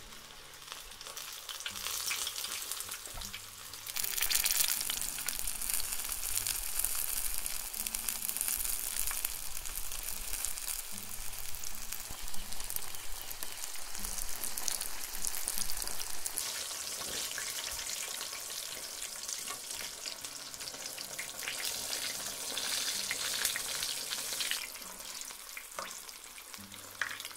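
Potato-starch-coated tofu cubes deep-frying in hot oil for agedashi tofu, a dense crackling sizzle that grows louder about four seconds in.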